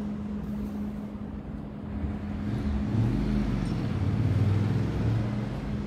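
Road traffic rumbling steadily, growing louder about three seconds in as a vehicle passes and easing off near the end.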